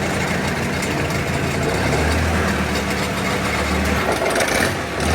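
Log splitter's small gas engine running steadily. From about two seconds in to about four, a deeper hum swells under it, as the splitter's hydraulics are worked to see which hose jumps.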